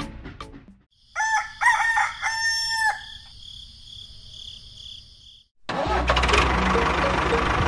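A rooster crowing once, cock-a-doodle-doo, about a second in. Near the end a loud, steady noise with a low hum starts abruptly.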